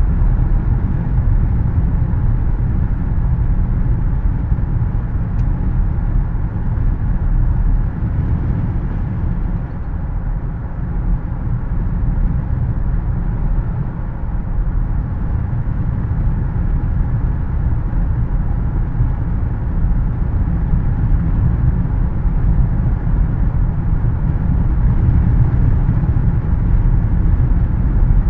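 Steady road noise of a car driving, heard from inside the cabin: a low tyre-and-engine rumble with the air conditioning's steady hiss over it. It eases slightly about a third of the way in and builds again toward the end.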